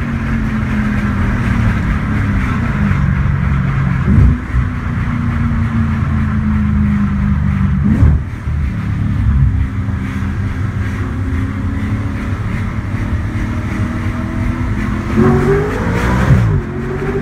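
2015 Audi RS5's 4.2-litre V8 heard from inside the cabin while cruising, through a JHM 2.75-inch catback exhaust and non-resonated downpipes with the exhaust valves open: a steady low exhaust drone. It gets briefly louder about four and eight seconds in, and the revs rise and fall near the end.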